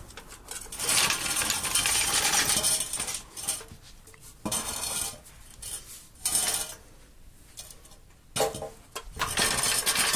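Metal clattering and scraping in several bursts from a trolley jack carrying a Ford Ka's steel rear beam as it is handled and moved on concrete; the longest burst comes about a second in and another near the end.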